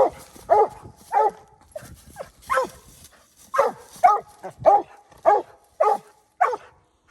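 Mountain Cur barking treed: a run of short, evenly paced barks, about two a second, with a brief pause near the middle, marking the den tree where the squirrel holed up.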